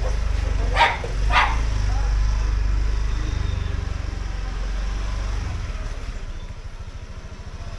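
A dog barks twice in quick succession, about half a second apart, over a steady low engine rumble.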